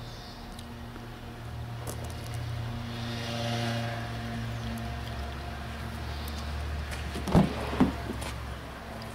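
A car engine idles with a steady low hum. Near the end come two sharp clacks about half a second apart as the rear door of the Honda Accord is unlatched and swung open.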